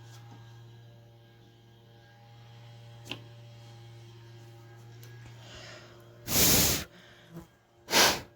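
Steady low electrical hum with a single click about three seconds in, then two short, loud rushes of noise near the end.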